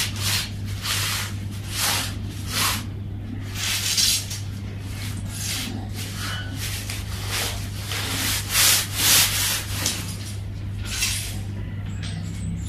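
Dome shelter tent fabric rustling and swishing again and again as it is pulled and dragged across a tiled floor, over a steady low hum.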